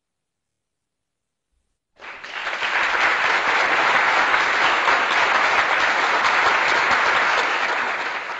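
Applause sound effect: a crowd clapping that starts about two seconds in, swells quickly to a steady level and tails off at the end.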